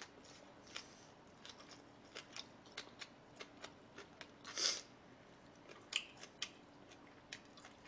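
Close-miked chewing and eating sounds: an irregular run of small wet clicks, smacks and crunches, with a louder crunch near the middle.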